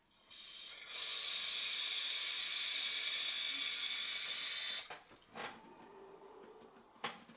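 Steady hiss of a long vape drag on a FreeMax Starre Pro sub-ohm tank: air pulled through the open airflow past the firing coil for about four seconds, cutting off sharply. A fainter breathy exhale follows.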